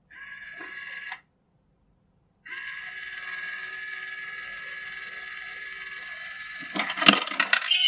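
Small battery motor and plastic gears of a cat coin bank whirring steadily for about four seconds, with a shorter whir in the first second. Near the end comes a loud burst of clicks and rattling as the mechanism sweeps the coin into the box.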